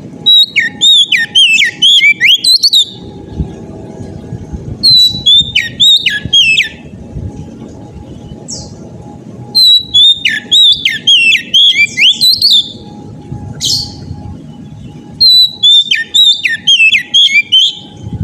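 Oriental magpie-robin (kacer) singing loudly in full song: four long phrases of quick, sweeping whistled notes, with single short notes between them.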